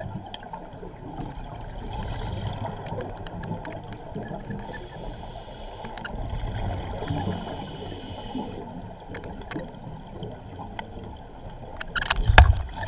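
Scuba diver breathing underwater through a regulator, heard through the camera housing: two drawn-out hissing inhalations about five and seven seconds in, with low bubbling exhalations around them. Loud knocks and bumps near the end as the camera is moved.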